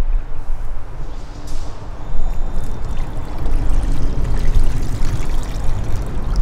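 Thin citrus marinade poured from a plastic bowl through a fine mesh strainer into another bowl, a steady trickle of liquid. A low rumble runs underneath throughout.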